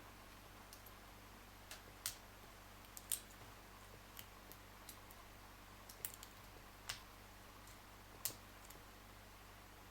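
Faint, irregular clicking of a lock pick and tension tool working the pins of a 4-pin Abus 713/40 padlock, about fifteen short ticks spread unevenly, the loudest about three seconds in.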